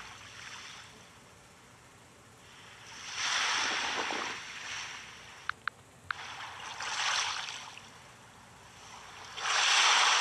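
Ocean surf ambience: waves swell and wash away three times, each about two seconds long. Three short clicks come just after the middle.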